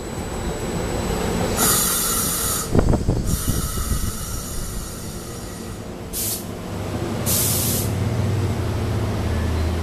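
SEPTA electric commuter train pulling slowly alongside the platform as it comes to a stop, with repeated bursts of air hissing, a sharp clunk about three seconds in, and a low hum building near the end.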